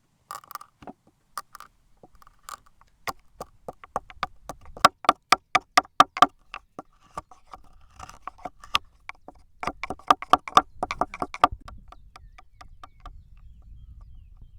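Repeated sharp knocks of a hard object striking something hard that rings briefly. They come in two quick runs of about five strikes a second, with scattered single knocks around them. A faint low rumble remains once the knocking stops, near the end.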